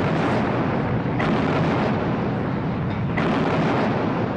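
Heavy naval guns firing in a barrage. A fresh blast comes about a second in and another about two seconds later, each sudden onset trailing into a long rumble that lasts until the next.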